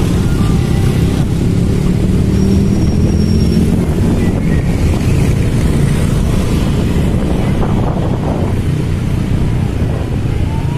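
Wind rumbling on the microphone of a moving motorcycle, mixed with the running of motorcycle and scooter engines; the engine note is plainer in the first few seconds and fades out about four seconds in.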